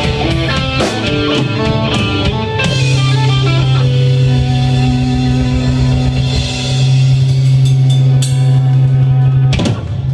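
Live rock band playing electric bass, electric guitar and drum kit. A quick run of guitar notes gives way, a few seconds in, to a long held chord over the drums and cymbals.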